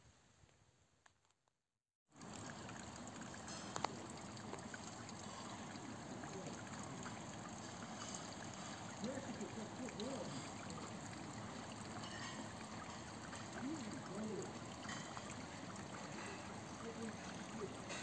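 Small garden fountain: a thin jet splashing into a stone-edged pond and water trickling over the rocks, a steady even sound that starts after a brief silence about two seconds in.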